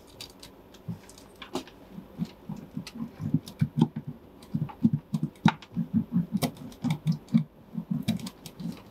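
Hand roller pressing foil-faced sound-deadening mat onto a BMW E30's sheet-metal floor pan. It makes a rapid, irregular run of low, dull knocks with a few sharp clicks, starting about two seconds in.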